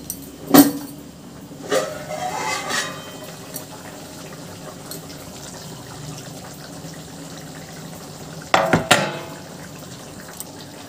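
Metal kitchenware clinking against a steel plate and a kadai: a sharp clink about half a second in, a short ringing scrape around two seconds, and a loud clatter near the end. In between, water bubbles steadily at the boil in the kadai.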